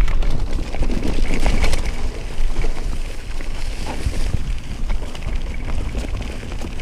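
Wind buffeting the microphone as a steady low rumble, with scattered rattles and knocks from a mountain bike ridden over a rough trail.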